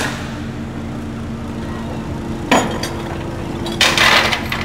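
A steady low mechanical hum. A single sharp knock comes about two and a half seconds in, and a short clattering rattle follows near the end.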